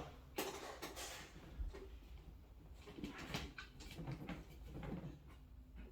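Scattered light knocks and clicks of flat-pack cabinet panels and hardware being handled and fitted into place.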